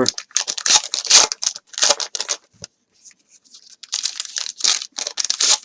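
Trading card packaging being torn open and crinkled in hand: irregular rustling and tearing bursts, with a short pause about halfway through.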